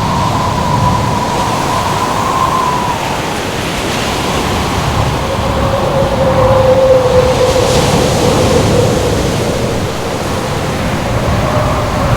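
Steady roar of surf and wind, with a howling wind tone that drifts in pitch: higher for the first few seconds, then lower and stronger from about five seconds in.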